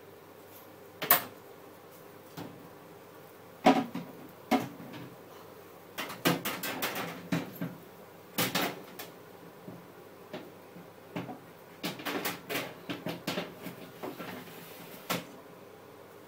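Kitchen clatter: a string of knocks, clunks and rattles from cupboard doors, trays and pans being handled, with single sharp knocks about a second in and near four seconds and busier runs of clatter in the middle and towards the end.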